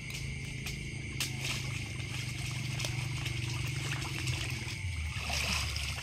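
Water trickling and sloshing as a mesh net bag of small fish is swished and rinsed in river water, the sloshing thickening about five seconds in. A steady insect trill and a low hum run underneath.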